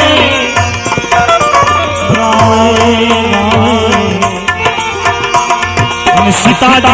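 Instrumental passage of a live devotional bhajan between sung lines: percussion strokes keep a steady beat under sustained melody notes.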